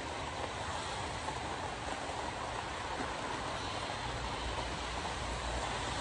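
Soy chunk curry boiling in a pan on the stove, a steady bubbling, rushing noise.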